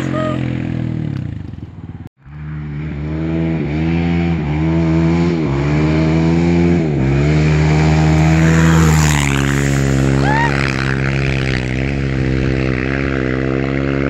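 Suzuki LT-R450 quad's single-cylinder four-stroke engine, its stock exhaust baffle removed, revving hard. Its pitch climbs again and again as the rider works the throttle and accelerates through a slide on gravel. The sound cuts out abruptly about two seconds in, then resumes.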